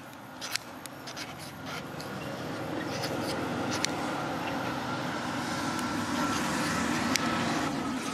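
A metal nail file scraped in short strokes against a ferrocerium fire-starter rod, each stroke a sharp rasp. A steady rumble builds from about two seconds in and stops abruptly near the end.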